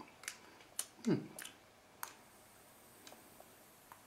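A few sharp clicks as an e-cigarette device with a rebuildable dripping atomizer is handled and fired for a test puff, with a short sound falling in pitch just after a second in as the loudest moment. A faint high hiss follows from about two seconds in.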